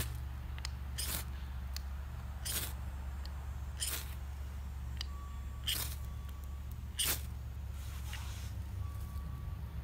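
Steel knife spine scraping down a ferro rod (fire steel) over and over to throw sparks onto birch-bark tinder, in short sharp strokes about every second and a half, over a steady low rumble.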